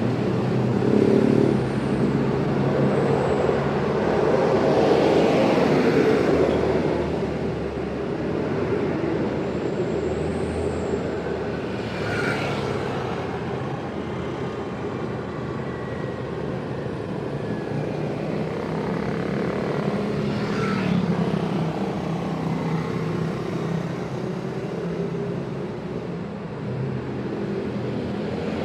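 Busy road traffic: many vehicle engines and exhausts running and passing in a continuous dense mix, louder in the first several seconds and then easing a little.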